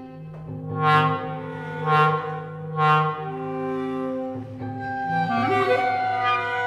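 Contemporary chamber music for flute, clarinet, violin, cello and piano: sustained held tones, with three swelling accents about a second apart, then a rising glide near the end.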